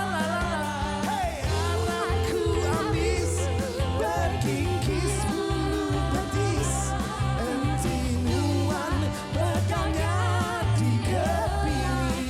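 A live band playing a pop-rock song, with a singer's voice carrying the melody over steady bass and drums.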